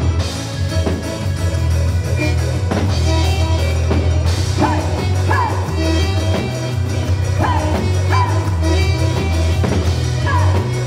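Loud music for a quadrilha junina dance, with a heavy bass line and a steady beat.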